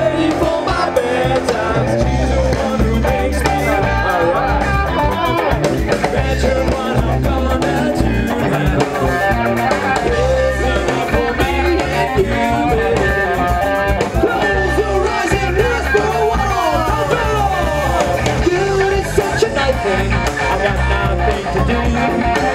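Live rock band playing: electric guitar and drums under a lead vocalist singing into a microphone.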